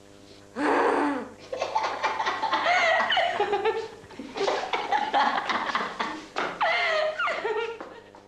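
A person laughing hard in several long fits, with high rising and falling peals, a short lull in the middle, and the laughter dying away near the end.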